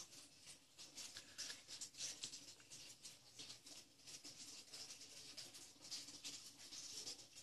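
Near silence: faint room tone with soft, irregular crackles.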